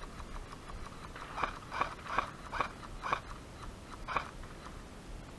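Airsoft rifle fire: about six single sharp pops over roughly three seconds, unevenly spaced, with a few fainter clicks before them.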